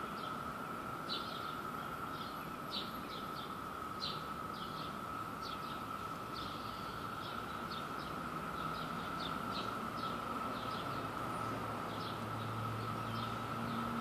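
Distant chorus of Brood II periodical cicadas, a steady even drone, with short high bird chirps scattered over it.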